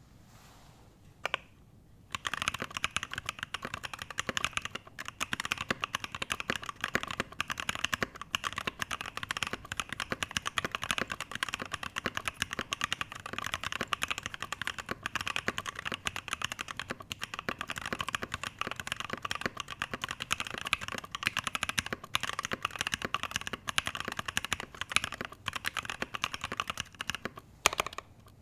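Continuous typing on a Satisfaction 75 mechanical keyboard with stock Alpaca V2 linear switches on a brass plate, CRP R4 PBT keycaps and no plate or case foam. A single keystroke comes about a second in, then steady, rapid typing from about two seconds in, pausing briefly near the end.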